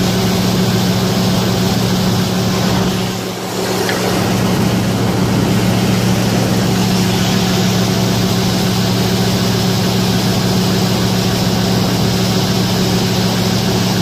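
Combine harvester running steadily with its unloading auger engaged while it unloads soybeans: a loud, even engine drone with a low hum. The drone dips briefly about three seconds in.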